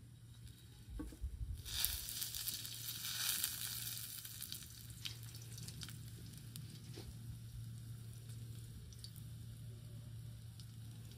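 Hot oil sizzling in a wide, shallow metal pan as a skewer of food fries in it. The sizzle flares up loudly about two seconds in, then settles to a steady, quieter sizzle with scattered crackles and pops.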